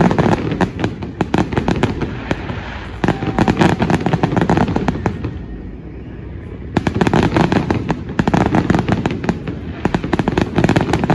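Aerial fireworks display: a rapid, dense barrage of bangs and crackles from bursting shells. It eases off briefly a little past halfway, then resumes just as densely.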